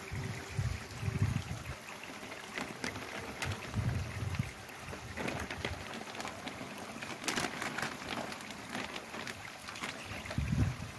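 Clear plastic fish bags crinkling and water sloshing as the bags are opened and tipped at the surface of a koi pond to release the fish, over a steady trickle of pond water.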